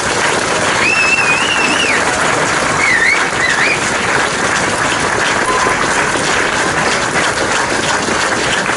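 Large outdoor crowd applauding steadily at the end of a speech, with a few high wavering whistles from the crowd early on.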